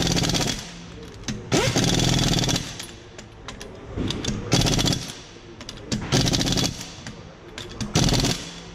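Impact wrench rattling in short bursts, about six of them, each under a second long and one to two seconds apart.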